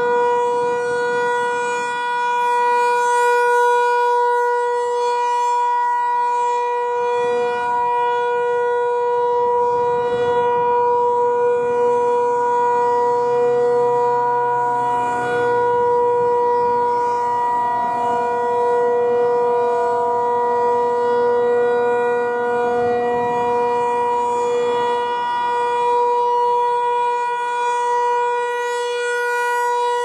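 Federal Signal 508-128 electronic rotating siren sounding a steady, unchanging alert tone while its speaker head turns.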